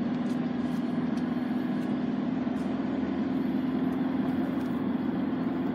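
Steady drone of a car driving, heard from inside the cabin: engine hum and road noise, with a few faint ticks.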